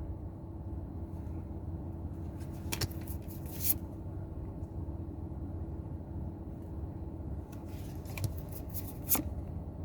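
Trading cards handled, with a few short rustles and clicks, over a steady low hum.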